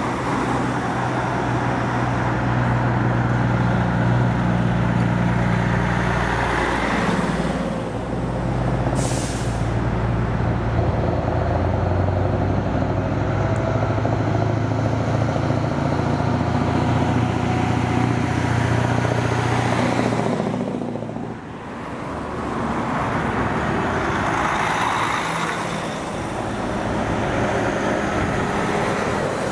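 Heavy diesel trucks and cars passing on a town road: engines running and tyre noise, with a brief high hiss of an air brake about nine seconds in. The traffic eases for a moment just after twenty seconds, then a Scania prime mover's diesel engine grows louder as it approaches near the end.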